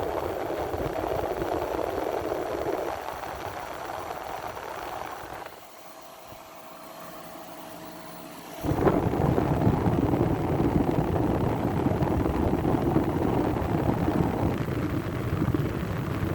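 1985 Fedders AirTemp 5,000 BTU window air conditioner running, its fan blowing air with a steady whooshing hum. Partway through, the sound drops quieter for about three seconds, then comes back louder all at once.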